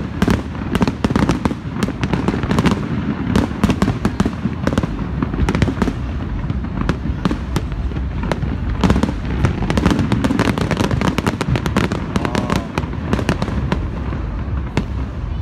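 Fireworks display: aerial shells bursting and crackling in a dense, unbroken string, several reports a second, over a steady low rumble.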